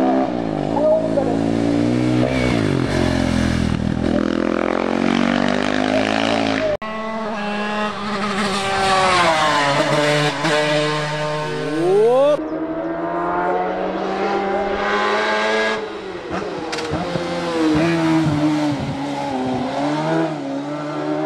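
Racing motorcycle engines revving hard and changing gear as bikes accelerate past on a hill climb, with sharp rising revs about twelve seconds in. The sound changes abruptly a few times where clips are cut together, and near the end it is a racing sidecar outfit's engine.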